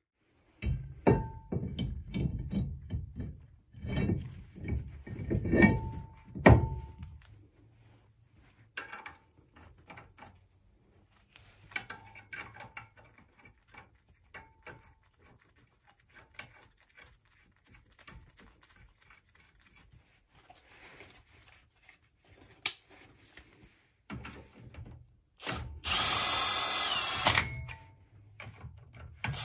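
Heavy metal clunks and knocks as a brake rotor is handled and fitted over the wheel hub's studs. Near the end a Milwaukee cordless impact wrench runs in a loud burst of about two seconds, driving a nut onto a hub stud.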